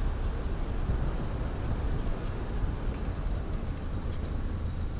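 Car in motion: steady engine and road noise with a deep low rumble, heard from inside the cabin.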